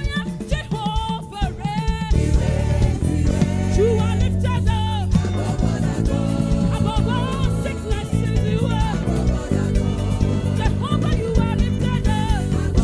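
Church choir singing a gospel praise song over band accompaniment, the fuller bass and backing coming in about two seconds in.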